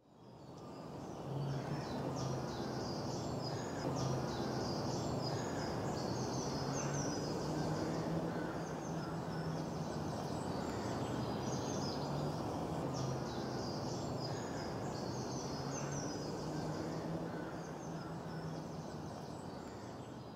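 Outdoor ambience of small birds chirping over a steady low background hum, fading in at the start and fading out near the end.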